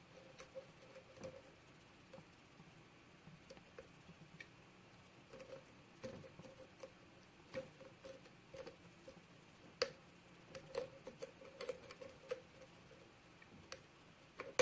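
Lock pick working the pins inside a 7-pin GE lock cylinder, with faint, irregular small clicks and taps. The clicks bunch together near the end.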